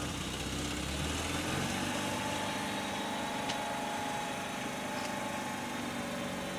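Mazda RX-8's rotary engine running with a steady hum and no metal-to-metal grinding from the freshly replaced rear brake pads.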